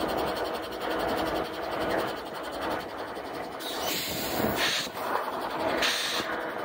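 EMD SD70ACe diesel locomotive idling while tied down, a steady engine drone. Three short bursts of hissing come about four to six seconds in.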